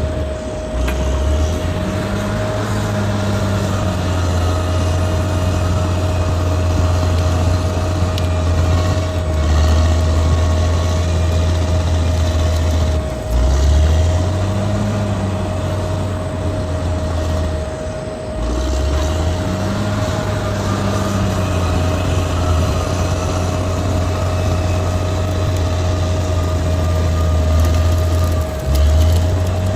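Bulldozer's heavy diesel engine working, a deep steady drone with a constant whine above it. The engine pitch sags and picks back up four times, about a second in, near the middle, and near the end, as the machine takes and sheds load.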